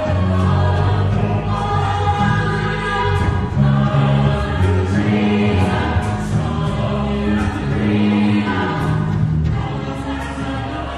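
A mixed choir singing in harmony, with sustained low bass notes under the upper voices.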